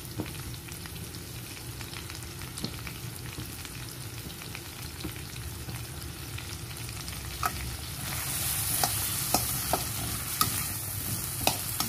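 Chopped onion, bell pepper and tomato sizzling gently in oil in a stainless steel kadai. About eight seconds in the sizzle grows louder, and a spatula clicks and scrapes against the pan as the vegetables are stirred.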